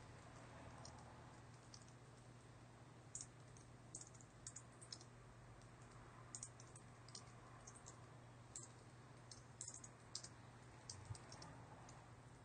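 Faint, irregular typing on a computer keyboard, keystrokes coming in short uneven runs over a low steady hum.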